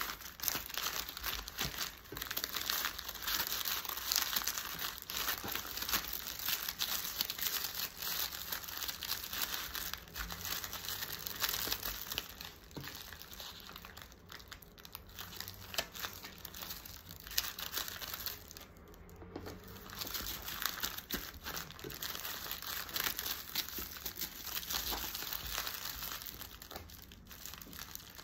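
Brown kraft honeycomb wrapping paper crinkling and rustling as hands fold and press it around a small package, with a brief lull about two-thirds of the way through.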